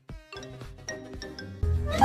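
Background music with steady tones and short plucked notes, briefly dropping out at the start; about one and a half seconds in, the sound jumps louder.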